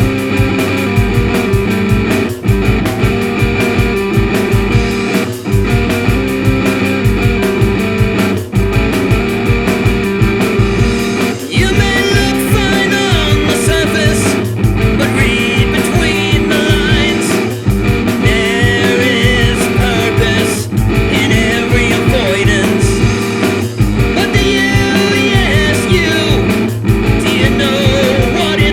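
Full-band rock recording: distorted guitars, bass and drums playing a riff with a steady beat. The band drops out briefly about every three seconds. From about twelve seconds in, a wavering lead melody rises above the band.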